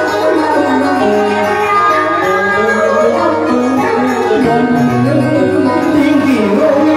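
Live performance of a Vietnamese duet song: a singer's voice over an electronic keyboard and drum kit.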